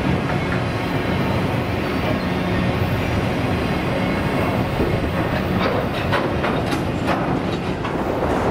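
Freight train of autorack cars rolling past, a steady rumble of steel wheels on rail. From about five seconds in, a run of sharper wheel clicks and clanks.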